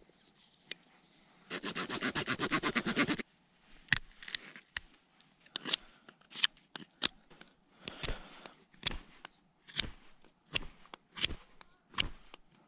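Knife whittling a small wooden spoon: a quick run of rapid sawing-like strokes for about two seconds near the start, then single sharp shaving scrapes about once a second.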